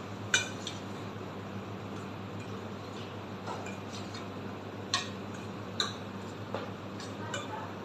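A metal spoon clinking and scraping against a stainless steel bowl while chickpea chaat is tossed and mixed: scattered, irregular clinks, roughly one a second.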